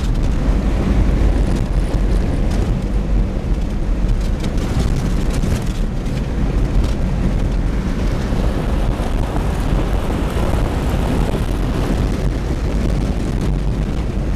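Steady low rumble of a car's engine and tyres on a rough dirt track, heard inside the cabin.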